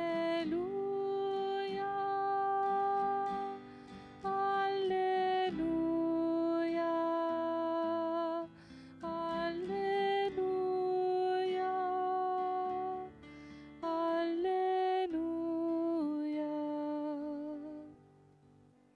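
Slow devotional music: a voice singing a long-held melody, gliding between notes, over plucked acoustic guitar. It fades out about a second before the end.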